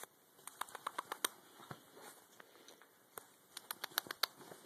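A rat terrier puppy scrabbling and playing on bedding: two flurries of quick, sharp clicks and taps with light rustling, the first about half a second in and the second after about three seconds.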